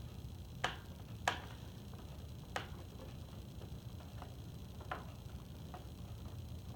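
Sharp plastic clicks and taps, about half a dozen at uneven spacing, the loudest two close together near the start, as a battery compartment cover is fitted back onto a Robosapien V2 toy robot.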